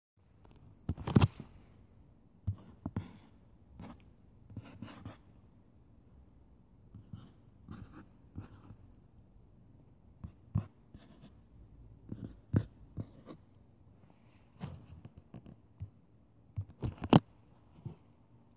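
Drawing on a touchscreen: irregular taps and short scratchy strokes on the glass. Two sharp taps stand out, one about a second in and one near the end.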